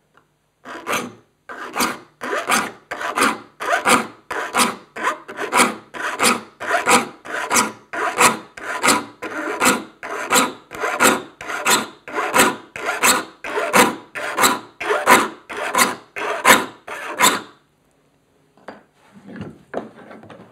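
Saw file rasping across the teeth of a crosscut handsaw, sharpening them at the fleam angle in steady strokes of about two a second, then stopping.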